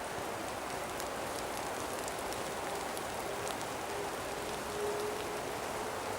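Light rain falling steadily, an even patter with a few faint drip ticks.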